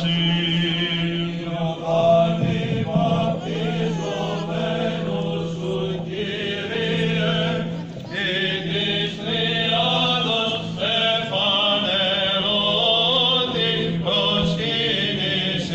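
Greek Orthodox Byzantine chant from the Great Blessing of the Waters service: voices sing a moving melody over a steady low held drone (the ison), with a short break in the melody about eight seconds in.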